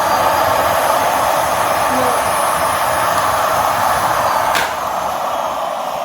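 Miele Classic C1 bagged canister vacuum cleaner running steadily, with a short click about four and a half seconds in, after which it runs a little quieter.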